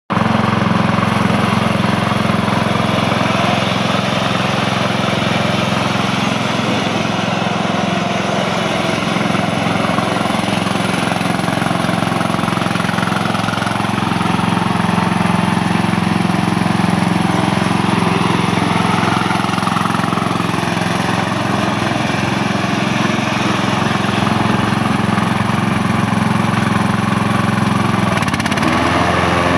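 Troy-Bilt 17 HP hydrostatic riding lawn mower's engine running steadily, its note shifting in pitch about a second before the end.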